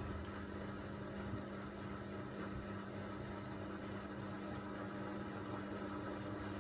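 Miele Navitronic W3985 WPS washing machine running mid-cycle on its Express 40° programme: a steady motor hum with a wash of water noise.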